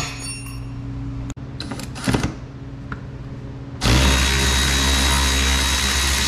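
Cordless drill/driver motor running steadily, starting about four seconds in, as it backs out the T30 Torx screw holding the ATV's front fender. Before it starts, a steady low hum and a brief clatter of handling.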